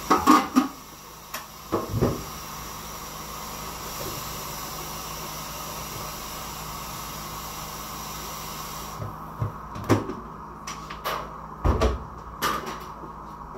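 Kitchen clatter: knocks of cupboard doors and pots being handled, a few near the start and more in the last few seconds, with one heavy thump about twelve seconds in. Under them runs a steady hiss that stops about nine seconds in.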